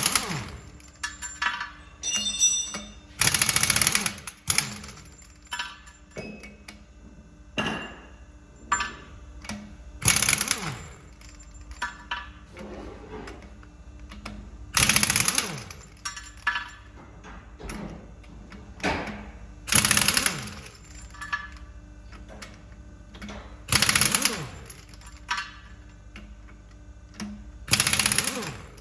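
Impact wrench hammering on the wheel nuts of a CAT 938 wheel loader. It comes in six short bursts about four to five seconds apart, each trailing off in a falling whine as the tool spins down, with clinks of nuts and tools between bursts.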